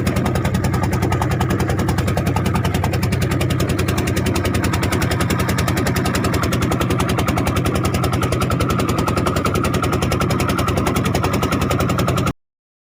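Boat engine running steadily at close range, a loud, fast, even pulsing with a low hum. It cuts off suddenly near the end.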